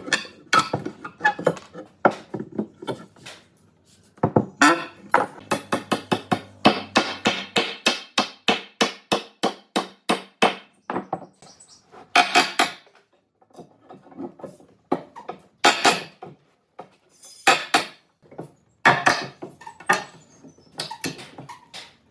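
Hammering on wood: a fast, even run of sharp knocks, about five a second, then several shorter bursts of knocks with brief pauses between them.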